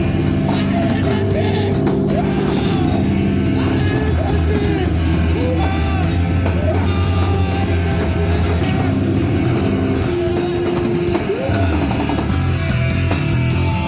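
Live rock band playing loudly: distorted electric guitars, bass and drum kit, with vocals.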